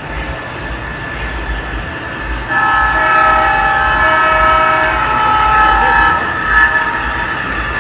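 The onboard sound system of an MTH O gauge GP9 model diesel locomotive plays a diesel air horn. A steady chord of several notes starts about two and a half seconds in and holds for about three and a half seconds, over the locomotive's diesel engine sound running underneath.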